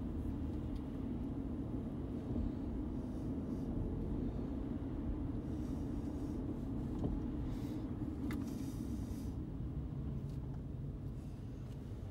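Car's engine and road noise heard from inside the cabin while driving slowly, a steady low rumble, with a brief hiss about eight seconds in.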